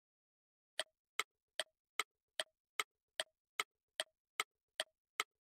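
Countdown-timer sound effect: clock-like ticking, about two and a half ticks a second, a dozen short even ticks with silence between.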